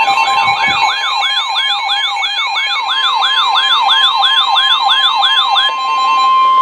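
Electronic siren-like yelp, about three quick rising-and-falling sweeps a second, stopping near the end. About a second in, a steady single tone near 1 kHz joins it and holds on: the NOAA Weather Radio 1050 Hz warning alarm tone that comes before a warning message.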